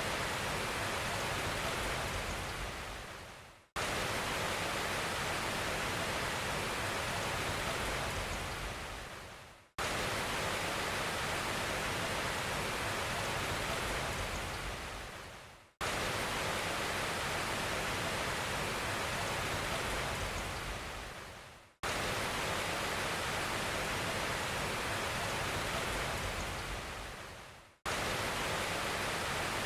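An even, rushing hiss of noise with no tone or rhythm in it. Every six seconds it fades away and then cuts back in abruptly, the same each time, like a short noise clip played on a loop.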